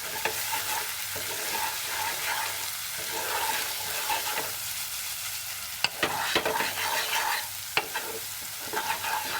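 Spices frying in hot ghee with chutney in a pan, sizzling steadily while being stirred and mixed, with a few sharp clacks of the stirring utensil against the pan about six and eight seconds in.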